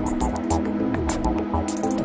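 Electronic music: a steady synthesizer drone under a low beat about three times a second that drops in pitch, sharp hi-hat-like ticks, and short gliding synth blips.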